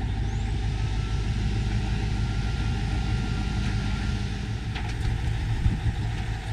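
Diesel engine of a fuel tanker truck running steadily during refuelling, a low drone with a faint high whine through the middle.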